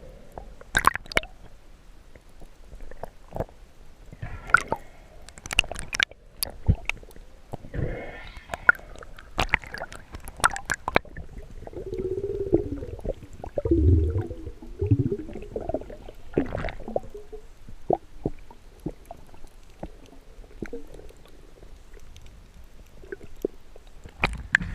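Water sloshing and gurgling, with many sharp clicks and knocks scattered throughout, and a louder, deeper gurgling stretch about halfway through.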